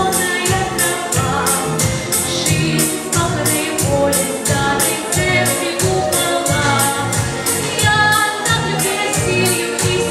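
A girl singing a song over musical accompaniment with a steady, quick beat.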